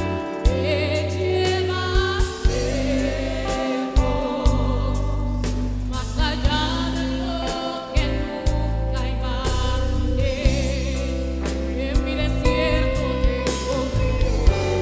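Mixed gospel choir singing live, backed by a band: drum kit hits keep the beat under the voices, over deep bass notes.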